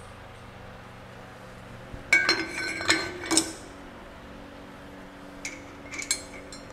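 Steel liner clamping bar being set over the studs on a cast-iron engine block: a few loud, ringing metal clanks about two seconds in, then lighter metal clinks near the end as a nut is worked on a stud.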